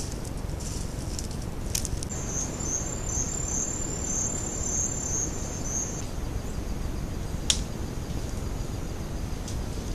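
Insects trilling: a high, steady trill that pulses about two to three times a second, strongest for about four seconds from two seconds in and fainter after, over a low steady rumble, with two sharp clicks.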